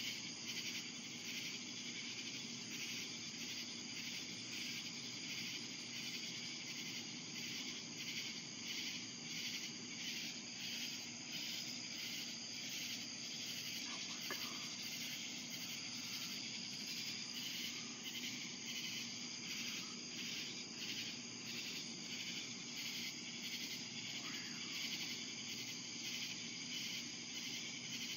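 Chorus of night insects chirping steadily, with a high, even, fast pulse that does not let up.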